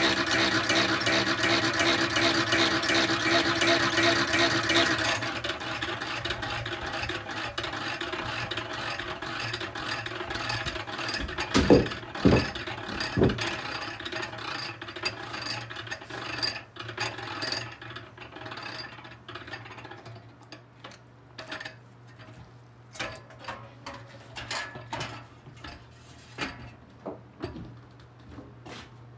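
Honey extractor's top-mounted gear drive whirring as the reel spins honeycomb frames. About five seconds in the drive drops off and the reel coasts down, with a few louder clunks around twelve seconds, then scattered clicks growing sparser as it comes to a stop.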